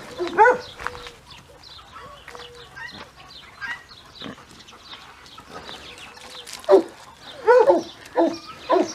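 A dog whining and yelping in short, pitched calls: a few just after the start, then a louder cluster in the last two seconds.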